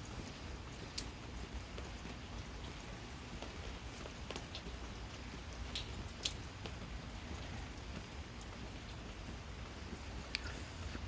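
Steady gentle rain with scattered sharp drip and drop ticks on a surface close by.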